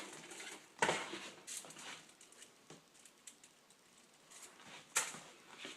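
Light clicks and taps of plastic zip ties being handled around a small bowl, with a sharper click about a second in and another near the end.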